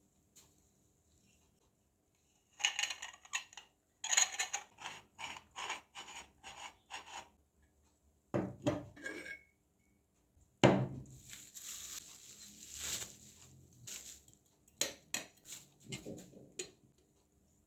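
Newly unboxed coffee equipment being handled: runs of light clinks and taps, two heavier knocks as pieces are set down, and a stretch of rustling.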